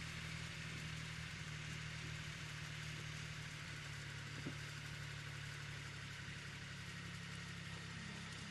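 Car engine idling: a steady low hum with a light hiss over it.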